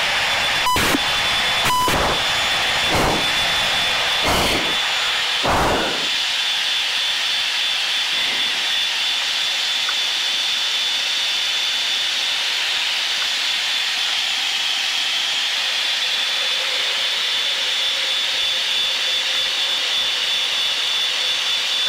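Steady jet engine and airflow noise inside the cockpit of a Blue Angels F/A-18 during a hard banking break turn of about 7 G, with a steady high whine above the roar. Several short sharp sounds come in the first six seconds.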